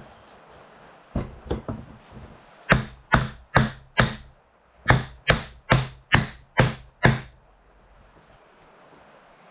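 A wooden block knocking on the end grain of a square timber post, driving its tenon down into a mortise. There are about a dozen sharp knocks: three light taps, then a run of four and a run of six harder blows, about two to three a second.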